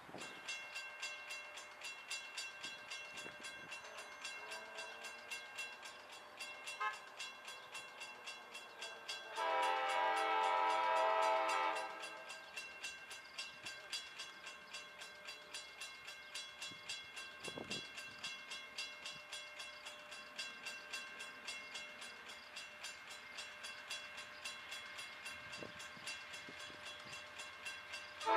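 Horn of an approaching CSX CW40-8 diesel locomotive sounding one long chord of about two and a half seconds, with another blast starting right at the end. Under it, a bell rings steadily at about two strikes a second.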